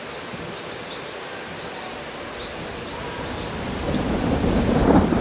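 Steady rain, with a low rumble of thunder building and getting louder over the last couple of seconds.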